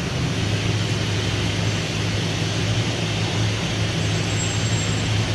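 Troller 4x4's diesel engine running steadily, its low hum dropping slightly in pitch just after the start.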